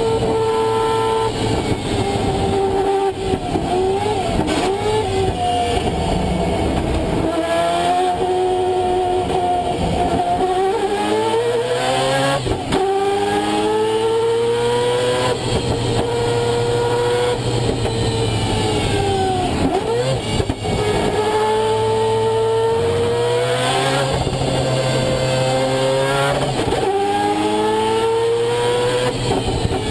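Mazda 787B's four-rotor R26B Wankel rotary engine at racing speed, heard on board: a high, buzzing note climbing through each gear and dropping sharply at every shift, falling away a few times as the car slows and changes down.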